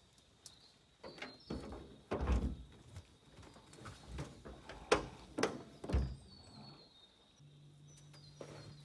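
A run of irregular knocks and thumps, about eight over five seconds, loudest about two and five seconds in. A low steady hum starts near the end.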